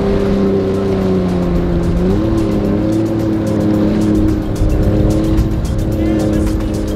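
Triple outboard motors on a large rigid-hull inflatable boat running under way, their steady drone rising in pitch about two seconds in as the throttle comes up, with water rushing and splashing along the hull.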